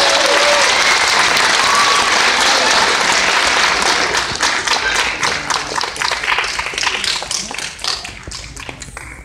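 Audience applauding after a band piece: dense clapping with a few cheers near the start, thinning after about four seconds into scattered claps that fade away.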